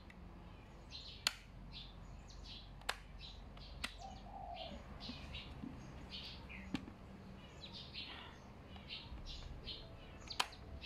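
Small birds chirping over and over in the background, with about five sharp clicks spread through, as the top vent slider of a KYT TT-Course motorcycle helmet is pushed open and shut.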